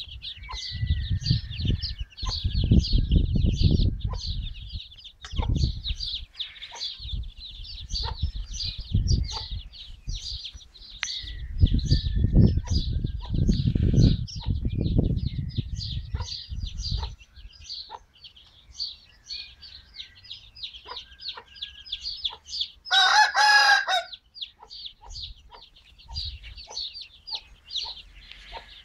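Rapid high chirping, about four or five chirps a second, runs on throughout. Gusts of wind rumble on the microphone through roughly the first half. About 23 seconds in, the Aseel rooster gives one short, loud call, about a second long.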